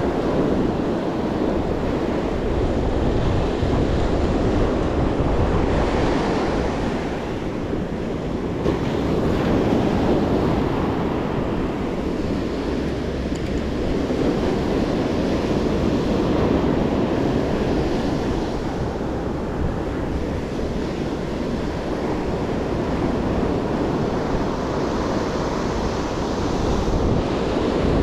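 Ocean surf breaking and washing up a sandy beach, rising and falling in loudness as each wave comes in, with wind buffeting the microphone.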